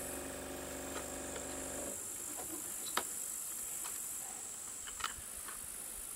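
Steady high chorus of insects, with a few sharp small clicks of a hex key and screwdriver against the chainsaw's carburetor as it is worked loose. A low steady hum stops about two seconds in.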